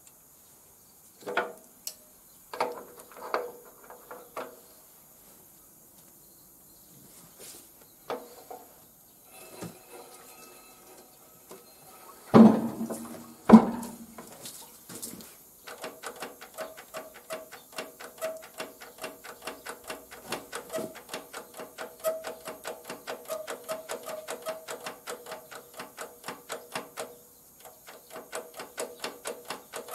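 Separate metallic knocks and clunks, two of them loud, from hand work on an old diesel walking-tractor engine. These give way to a steady, even run of short metallic ticks several times a second, which breaks off briefly near the end and then starts again.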